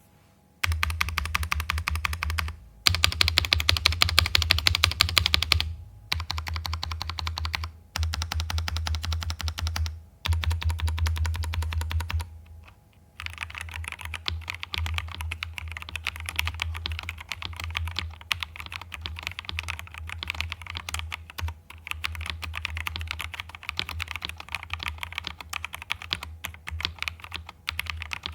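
Fantech Maxfit70 gasket-mount mechanical keyboard with stock Maxfit Yellow linear switches being typed on: several loud bursts of very fast keystrokes with short pauses between them for the first twelve seconds or so, then after a brief pause steadier, quieter typing.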